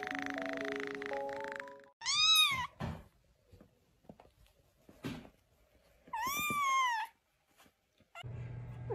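Music for about two seconds, then a kitten meowing twice, about four seconds apart, each meow rising then falling in pitch; the first is the louder.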